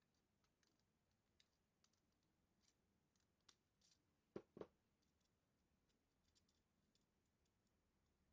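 Near silence broken by scattered faint clicks and two sharper knocks close together about four and a half seconds in.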